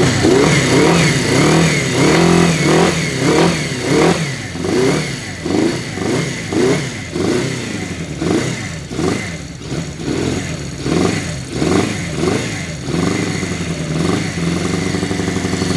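Benelli 250 Quattro's small four-cylinder engine running unevenly, its revs swelling and falling over and over before settling to a steadier idle near the end. It is not firing on all four cylinders: one cylinder is dead while the plug lead is being checked.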